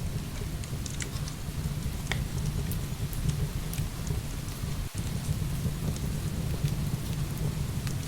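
Heavy rain pouring steadily with a deep low rumble, while a wood fire crackles in scattered sharp pops.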